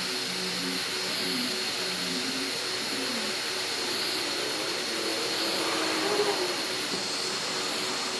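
Hot-air blower running steadily, a rush of air with a thin high whine, heating the adhesive that holds the iPad's shattered screen glass. There is a small bump in level about six seconds in.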